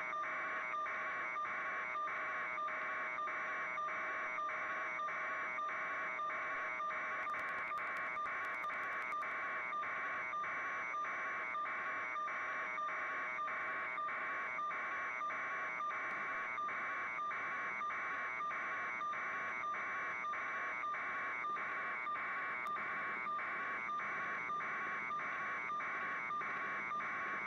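Electronic alarm buzzing in a steady pulse of about two beeps a second, holding one pitch.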